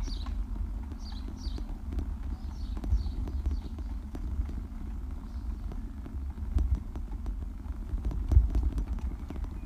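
Irregular clicks and knocks with a steady low rumble as a GoPro moves along a brick-paved street. Birds chirp briefly several times during the first three seconds or so.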